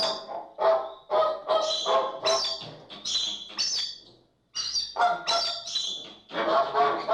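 A flock of flamingos calling, short calls about two a second. There is a brief pause a little past halfway, then near the end many birds call over one another.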